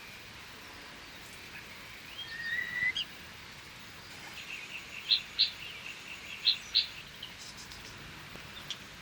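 Bird calling over a steady background hiss: a short whistle that rises and then levels off about two and a half seconds in, then two pairs of sharp, high chirps a little after the midpoint.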